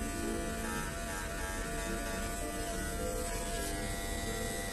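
Corded electric hair clippers buzzing steadily as they cut hair, with a song playing in the background.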